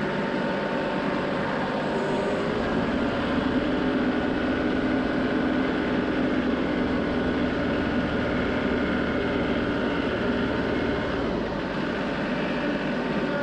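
John Deere 2038R compact tractor's three-cylinder diesel engine running steadily while the tractor drives with a loaded front-end grapple.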